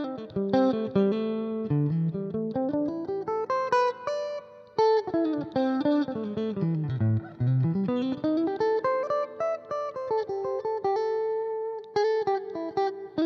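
Fender Stratocaster played clean through a Roland Blues Cube Hot transistor amplifier dialled for a jazz tone, with the treble and mids cut and the bass raised a little, giving a darker, closed-in sound. Picked single-note lines run down to the low notes about halfway through and climb back up.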